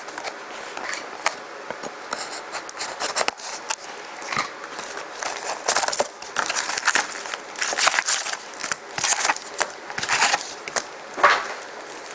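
Foil or plastic wrapper crinkling and tearing as a pack of hockey trading cards is opened by hand, in irregular rustling bursts.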